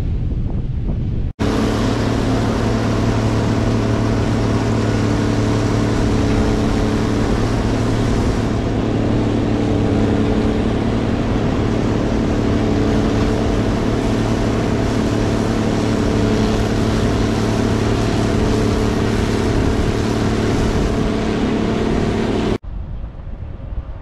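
Gleaner R72 combine running steadily while harvesting soybeans: a constant engine drone with a low hum and the noise of the machinery. It starts abruptly about a second in and stops abruptly near the end, with wind noise on the microphone either side.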